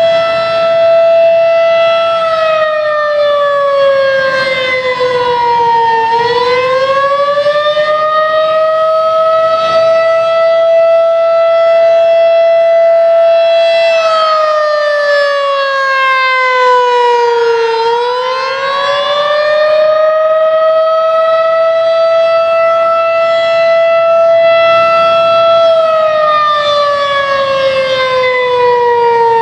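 Federal Signal 2001 electromechanical civil defense siren sounding a test signal: a loud, held tone that sags in pitch over a few seconds and climbs back up, about every twelve seconds, twice in full and starting to fall again at the end.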